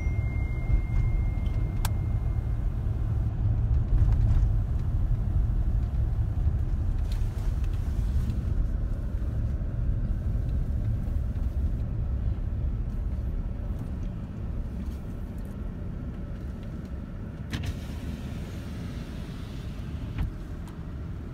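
Steady low road rumble of a car driving, heard from inside the cabin, easing off and growing quieter over the last several seconds. A brief high beep sounds right at the start.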